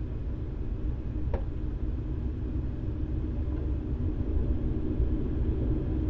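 Wind gusting across the microphone, a steady low rumble that grows a little louder toward the end, with one brief click about a second and a half in.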